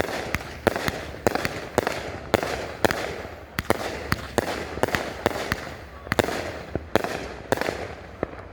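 A 500 gram, 25-shot consumer fireworks fan cake firing red peony and mine shots one after another without pause: a steady run of sharp bangs, about two to three a second, with the noise of the shells between them.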